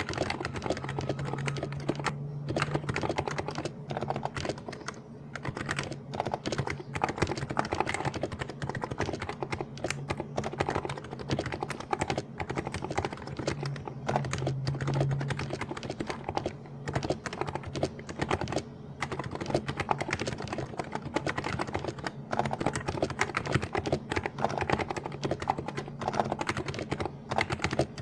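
Continuous fast typing on a Niz Plum Micro84 keyboard with stock 35 g Niz electro-capacitive (Topre-like) switches: an unbroken run of keystrokes at an even pace.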